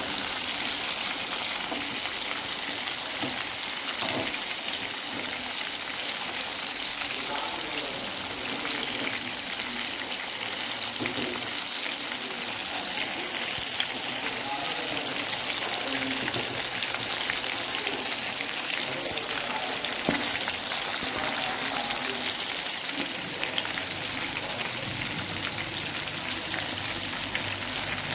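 Chicken pieces in an oat coating frying in hot oil in a pan, with a steady sizzle. A few light utensil clicks sound as the pieces are turned over.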